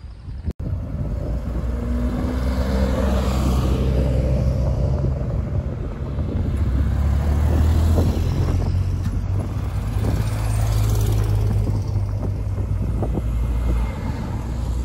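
A car engine running close by, low and steady, rising in pitch briefly a few seconds in.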